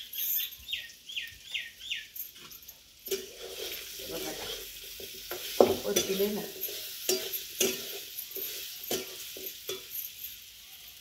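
Metal spatula stirring and scraping potatoes frying with spices in a steel pan, with a steady sizzle and irregular clinks and scrapes against the pan. A bird chirps about five times in the first two seconds.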